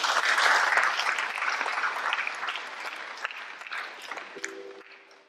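Audience applauding as the performers bow, loudest at first and then fading away. A short steady tone sounds near the end.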